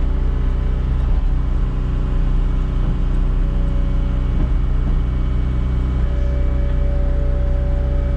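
Cat 259D compact track loader's diesel engine idling steadily, a low, even drone.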